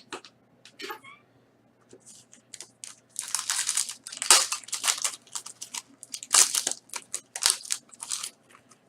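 Crinkling and rustling of plastic and paper card packaging being handled, in irregular bursts, busiest in the second half.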